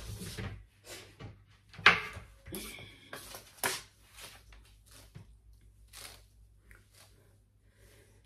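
A wooden wardrobe door being handled, with a sharp knock about two seconds in, then a string of soft swishing strokes as a brush is drawn through a straight bob wig, fading out toward the end.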